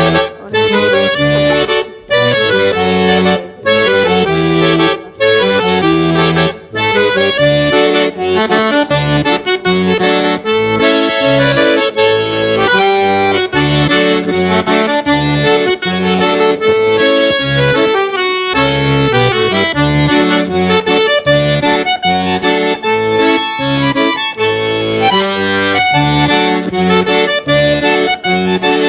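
Accordion music in a traditional style, with a few short breaks between phrases in the first seven seconds and then playing without pause.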